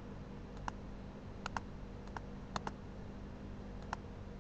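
Computer mouse clicking: a few short, sharp clicks, two of them in quick pairs, over a faint steady hum.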